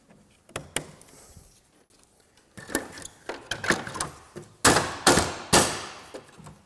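Land Rover Discovery 3 front grille being handled and pushed back onto the front of the vehicle: a few light clicks, then clattering and three loud knocks about halfway through as it is pressed and clipped home.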